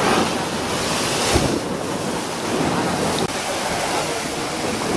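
Rough sea waves breaking and washing in, a steady rushing surf, with wind buffeting the microphone about a second and a half in.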